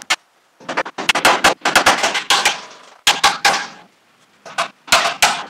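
A hammer driving 4-inch galvanized nails into the ends of a wooden door header, struck in quick runs of blows several times a second with short pauses between runs, each blow ringing in the steel building.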